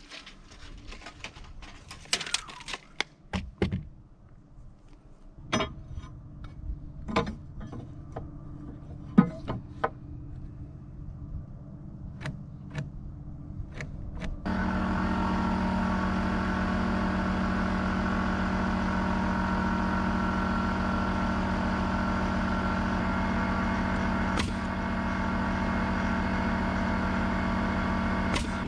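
Scattered knocks and clatter of framing lumber being handled. About halfway through, a steady motor drone with a low hum starts abruptly and runs on, with one sharp click a little before the end.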